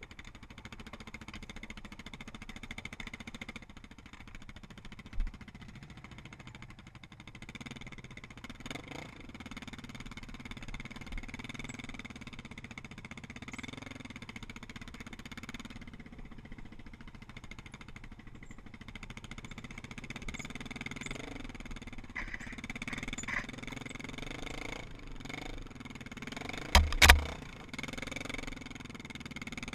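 ATV engine running steadily as the quad rides a rough dirt trail, with a sharp knock early on and two loud knocks near the end.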